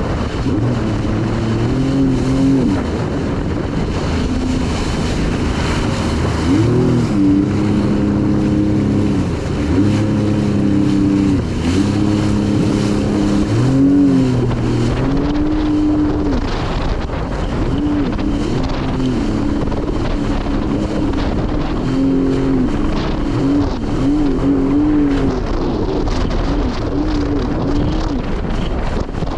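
Jet ski engine running under way, its pitch rising and falling again and again as the throttle is opened and eased, over a steady rushing noise.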